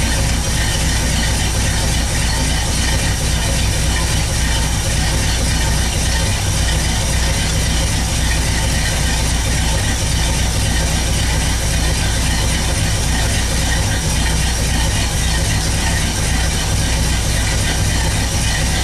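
1964 Pontiac GTO's 389 V8 idling steadily.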